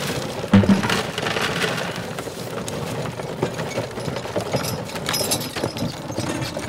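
Horse-powered sweep burr mill grinding corn: a continuous crackle of kernels being cracked between its spurred cones, with two heavy knocks about half a second in.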